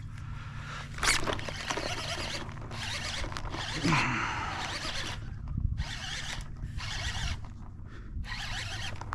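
Spinning reel being cranked in short spurts to retrieve a soft-plastic lure, a whirring rasp that starts and stops about once a second.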